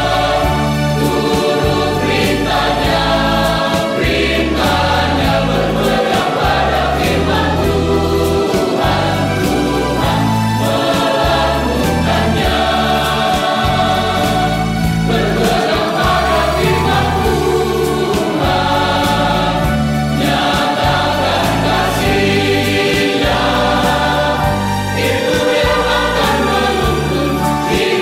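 Mixed choir of men's and women's voices singing an Indonesian gospel song over a steady instrumental backing.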